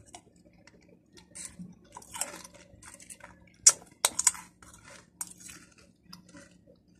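Crunching and chewing of crisp, spicy chili-flavoured snack chips, close to the microphone: irregular crisp crunches, the two loudest about halfway through.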